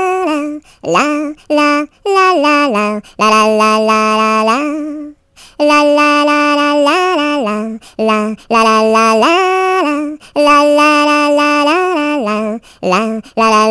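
A single high voice singing a wordless 'la la' melody without accompaniment, in long held notes that step up and down, with short breaks between phrases.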